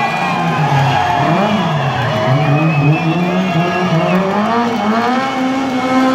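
Rally car engine revving hard on a tarmac special stage, its pitch climbing and dropping again and again as the driver works the throttle and gears.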